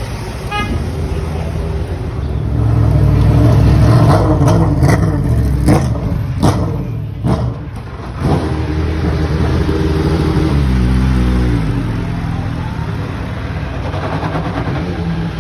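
Prototype race car engine running and revving in the paddock, with several sharp cracks over a few seconds in the middle. Near the end the engine note drops and then climbs again as the car moves off.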